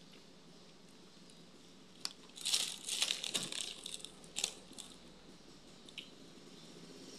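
Plastic bag crinkling in a burst of rustles from about two and a half seconds in, with a few light clicks around it, as a hand reaches into it on the table.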